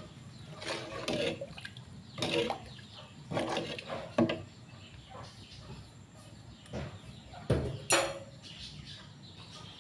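Metal ladle stirring curry in an aluminium pot: scattered scrapes, sloshes and knocks against the pot. A sharp clink comes near the end as the ladle is left resting in the pot.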